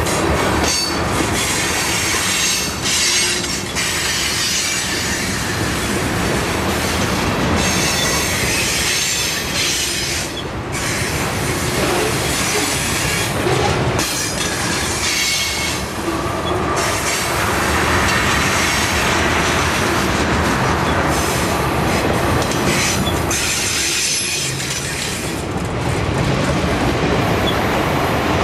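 Freight cars of a CSX train rolling past close by on curved track: loud, steady rumble and rattle of steel wheels on rails, with thin high wheel squeal coming and going.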